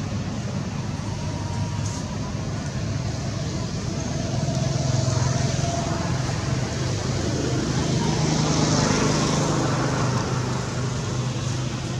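Motor vehicle traffic: a steady engine hum with road noise that swells louder for several seconds midway, as if a vehicle passes close, then eases off.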